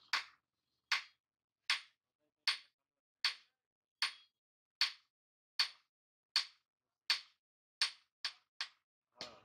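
Sharp metallic taps with a short ring, evenly paced at about one every 0.8 seconds, then three quicker ones near the end.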